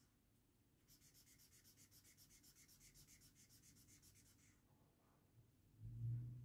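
Felt-tip marker scratching on paper in rapid back-and-forth strokes, colouring in a shape, faint, for about three and a half seconds. A low hum starts near the end.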